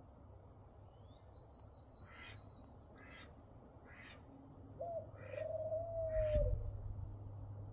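Birds calling: a short high trill, then a series of about five short, harsh, caw-like calls roughly a second apart. Near the middle a thin, steady, slightly falling tone is held for about a second and a half, over a low steady rumble.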